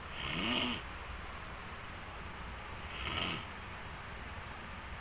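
A person snoring: two snores about three seconds apart, each a short pitched sound that rises and then falls.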